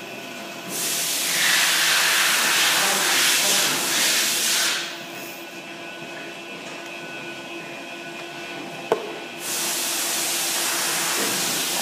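TIG welding arc on a stainless-steel muffler pipe: a loud hiss starts about a second in and stops just before the halfway point, then starts again about three-quarters of the way through, with a steady low hum in between.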